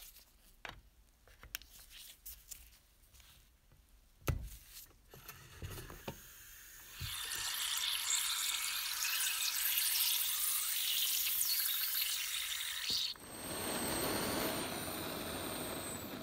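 Small clicks and one sharp knock as the brass boiler of a toy steam engine is handled. Then a steady hiss with bubbling for about six seconds while air escapes from the boiler held under water, checking it for leaks, cutting off suddenly; a softer rushing noise follows.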